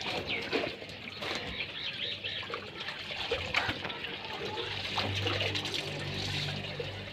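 Water running from a hose into a metal basin, splashing and dribbling as clothes are rubbed and sloshed in it by hand, with small clicks and knocks. A low hum comes in about five seconds in.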